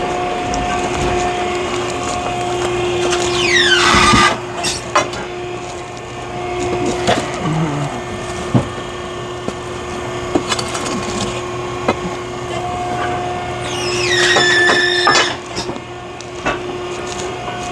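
Hydraulic log splitter humming steadily while oak logs are forced against the wedge; twice, about four seconds in and again about eleven seconds later, the wood creaks with a sliding squeal, rising in loudness, and cracks apart, followed by a few small snaps.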